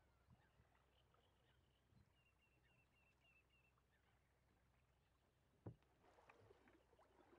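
Near silence, with a faint run of short high chirps about two seconds in and a single sharp click near the end.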